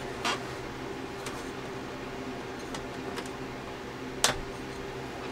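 Screwdriver clicking against the plastic fuse holder on the back of a Mastech HY3005F-3 bench power supply as it is pried at: a few small clicks, the sharpest a little after four seconds in, over a steady low electrical hum.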